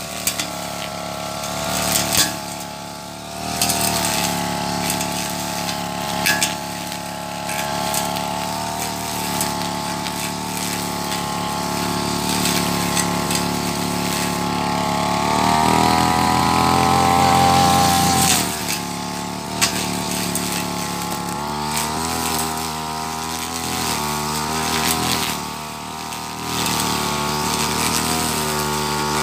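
Petrol brush cutter running as its metal blade cuts dense grass, the engine mostly held at a steady speed with a couple of brief dips. About halfway through it revs higher and louder for around three seconds, then settles back; a few sharp clicks stand out over the engine.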